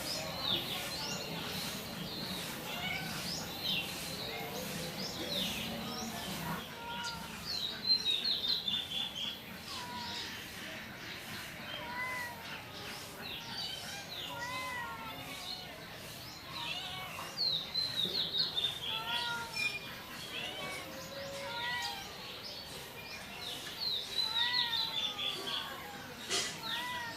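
Several small birds chirping continuously, with many quick high chirps and a repeated short arched call.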